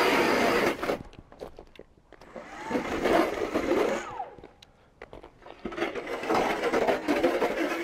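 StrikeMaster electric ice auger drilling through lake ice: its motor runs steadily and stops about a second in, then runs again in two shorter spells, one around the middle and one near the end, as the bit churns up ice chips.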